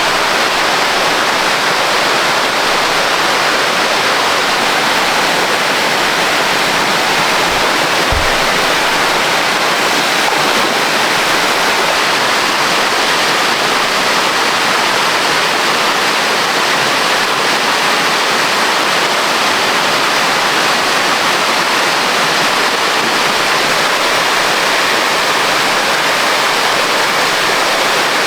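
Waterfall rapids rushing, loud and steady, with an even unbroken sound of falling water.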